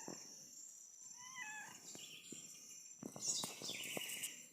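A southern house wren (garrincha) singing quick trilled phrases, twice, the second longer, over a steady high insect drone. A short wavering call comes about a second in.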